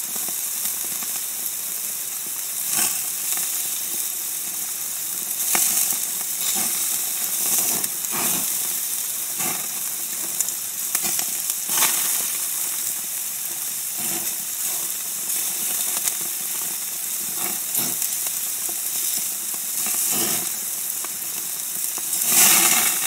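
Wagyu slices sizzling on a yakiniku grill: a steady frying hiss with frequent crackling pops, swelling louder near the end.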